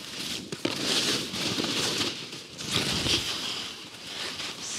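Line Sakana skis scraping and hissing over hard, bumpy, ungroomed snow, swelling and fading with each turn.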